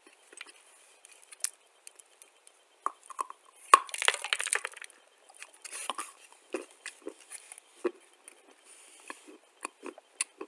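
Crunchy biting and chewing of a chunk of dry white clay: a dense crunch about four seconds in, the loudest part, and scattered crisp crunches and clicks around it.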